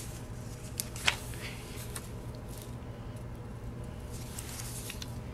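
Hands handling a paper planner and sticker sheets: a few light taps and soft paper rustles, the clearest tap about a second in, over a steady low hum.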